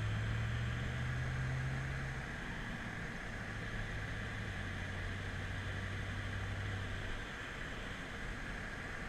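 BMW F10 M5's twin-turbo V8 heard from inside the cabin while driving, a steady low engine drone over tyre and road noise. The engine note steps down in pitch about two seconds in and fades about seven seconds in.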